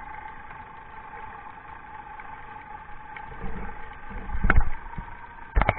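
Boat engine heard underwater as a steady hum with a few even tones. A sharp knock comes about four and a half seconds in, and a few clicks near the end.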